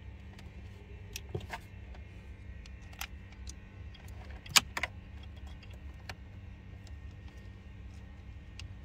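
Scattered light clicks and rattles of cables, plastic connectors and trim being handled inside a car dashboard's radio opening, with one sharper click about four and a half seconds in, over a steady low hum.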